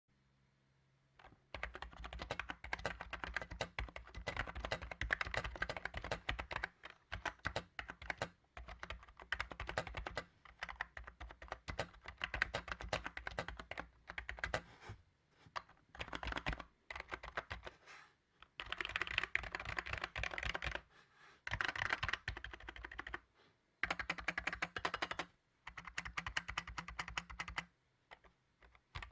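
Typing on an Aula AK208 wireless keyboard: fast runs of key strokes that start about a second and a half in and come in bursts with short pauses between them.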